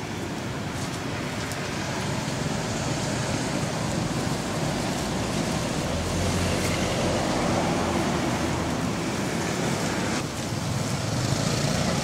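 Steady road-traffic noise, the rumble of passing motor vehicles growing gradually louder.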